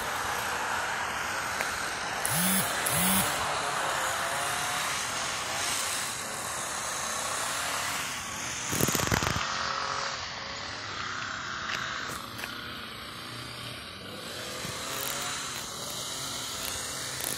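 Street traffic passing on a multi-lane road: a steady rush of tyre and engine noise, briefly louder about nine seconds in.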